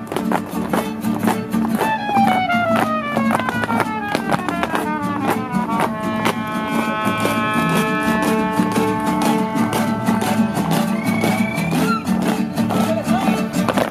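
Mariachi-style ensemble playing a Jalisco son: the violins play a stepped descending run in harmony about two seconds in, then hold long notes, over steady strummed guitars and a bass line.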